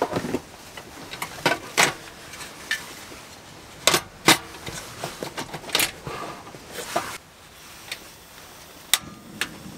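Clicks and knocks of metal and plastic as a portable gas stove is set down and its pot supports fitted over the burner, then two sharp clicks near the end as the ignition knob is turned.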